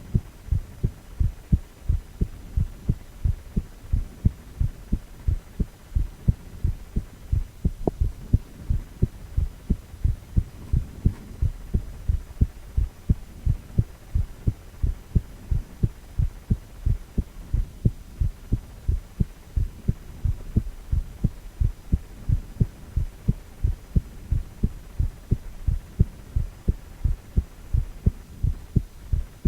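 Adult male heartbeat: a steady, regular rhythm of low thumps over a faint low hum.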